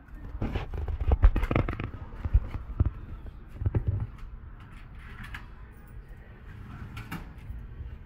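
A quick run of knocks, clicks and bumps over the first four seconds, then a couple of faint ticks near the end.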